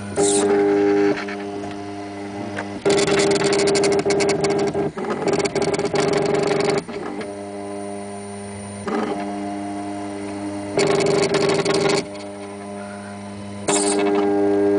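Motors of a latex-paint 3D printer driving the print head in four runs of one to four seconds each: a whine in several tones, with rapid clicking through the longest run, over a steady low hum.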